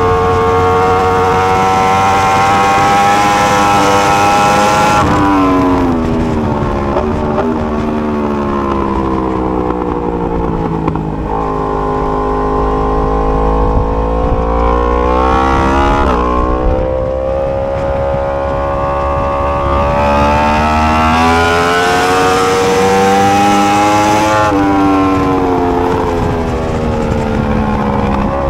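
2020 Yamaha R1M's 998 cc crossplane inline-four revving hard under acceleration, its pitch climbing and then dropping sharply at gear changes, with long stretches of falling pitch as it slows on engine braking.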